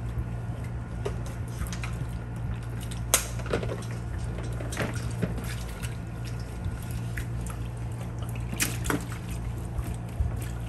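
Water splashing and dripping in a plastic tub as gloved hands rub and rinse raw pork spare ribs, in irregular small splashes with sharper ones about three seconds in and again near nine seconds.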